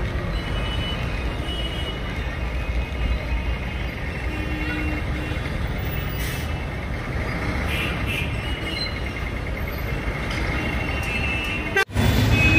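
Busy railway station ambience: a steady low rumble of engines and machinery, with faint high tones over it. The sound cuts out for an instant near the end.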